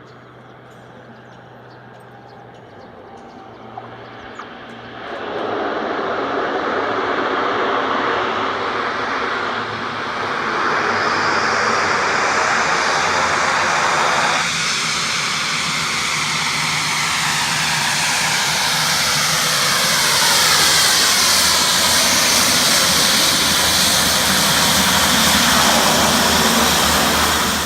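A small fixed-wing aircraft's engines running at high power at Lukla airstrip. The sound comes in about five seconds in and grows louder as the plane moves, with a sweeping shift in pitch, then cuts off abruptly at the end.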